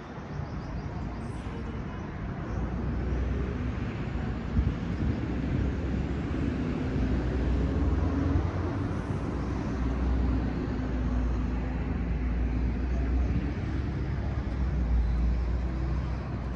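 Steady outdoor rumble and hiss, with a deep low rumble that grows louder over the first few seconds and then holds.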